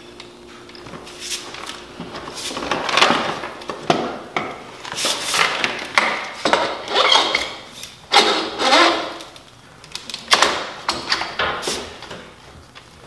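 Metal clinking, scraping and knocking in uneven bursts as a dirt bike's front fork tube is worked up through the triple clamps, with sharp clicks along the way.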